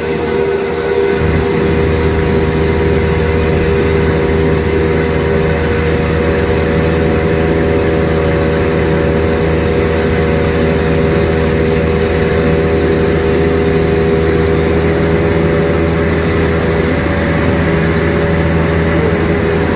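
Wake boat's engine running steadily at a constant speed, a drone with several fixed tones that does not change, over the rushing, splashing water of the wake behind the boat.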